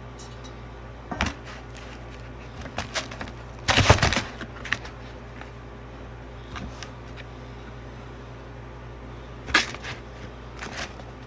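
Tabletop handling sounds: a few knocks and clatters of a cardboard pizza box and a water bottle being set down, the loudest cluster about four seconds in and another shorter one near the end.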